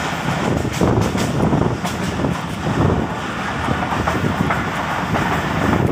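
Passenger train coach running along the track, heard from an open window: a steady rumble of wheels on the rails with scattered irregular clicks.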